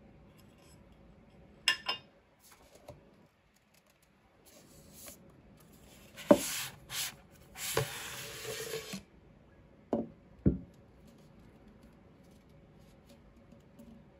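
A whisky bottle in its cardboard presentation tube: a couple of small clicks from handling the tube's metal lid, then a long rubbing scrape with several knocks as the bottle is slid out of the tube, and two knocks as the bottle is set down on a wooden table.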